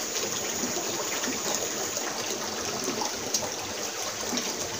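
River water running steadily over rocks, a constant trickling rush, with a faint sharp tick a little past the middle.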